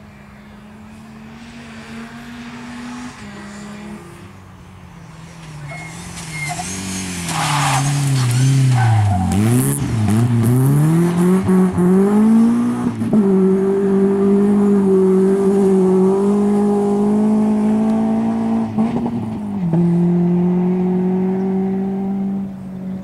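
Rally car engine approaching, then braking hard into a corner, its revs falling and rising through several downshifts with a brief tyre squeal. It accelerates out at high revs, shifts up once near the end, and draws away.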